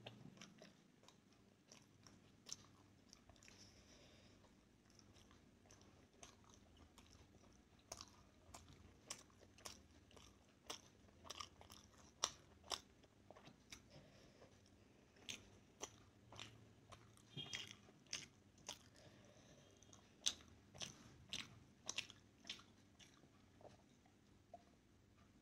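Mouth sounds of a person chewing a mouthful of steamed momo with lips closed: a run of short wet clicks and smacks, few at first and coming thickly from about a third of the way in.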